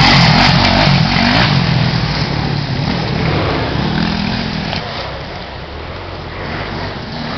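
Enduro motorcycle passing close by, its engine revving up and down as it rides away and fades. Another engine grows louder again near the end.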